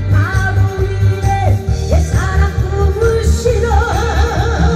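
A woman singing into a microphone over an amplified backing track with a steady bass beat, holding a note with a wide vibrato near the end.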